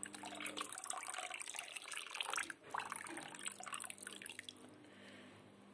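Gypsum coagulant solution poured in a thin stream into a pot of hot soy milk, a faint liquid trickle that dies away near the end. It is the second dose of coagulant, added to curdle the still-liquid top layer of the milk into tofu curds.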